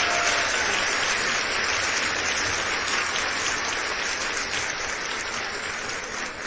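Crowd applause, a dense steady clatter of clapping that gradually fades out.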